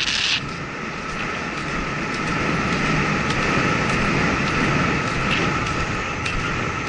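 Wind rushing over a helmet camera's microphone as a horse gallops cross-country at about 22 mph, a steady roar that eases slightly about half a second in.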